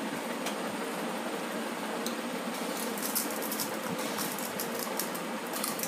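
A crisp panipuri shell crunching as it is bitten and chewed: a run of fine crackles starting about two seconds in, over a steady background hiss.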